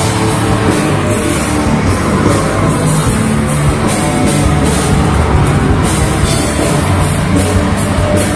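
A live rock band playing loud and fast: electric guitar over a drum kit, with cymbals struck on a steady beat.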